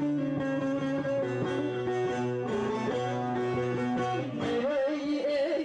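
A bağlama (long-necked Turkish saz) playing a plucked melody. About four and a half seconds in, a voice joins, singing with a wavering, ornamented pitch.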